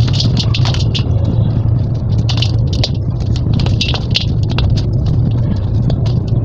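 Dry red sand-cement slab being crumbled by hand, crunching and crackling in short clusters as crumbs and grit fall and tick onto a stainless steel bowl. A steady low hum runs underneath.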